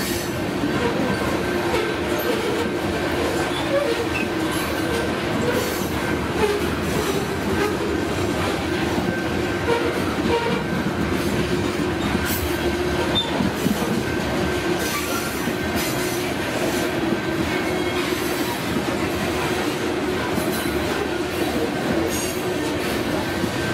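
A BNSF freight train of covered hopper cars rolling past: a steady, unbroken noise of steel wheels on rail, with a steady whine held throughout.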